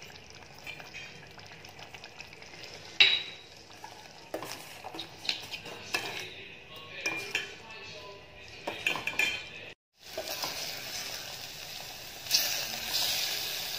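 Steel spoon scraping and clinking against a steel pot as thick sauce is stirred, with one sharp clink about three seconds in. About ten seconds in, homemade schezwan sauce sizzling as it fries down in the pot, louder near the end.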